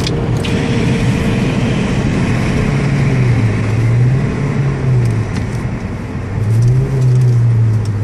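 Eighth-generation Honda Civic 1.8 i-VTEC four-cylinder running at high speed, heard from inside the cabin over heavy road and wind noise. In the second half the engine note rises and falls twice as the car brakes hard from high speed.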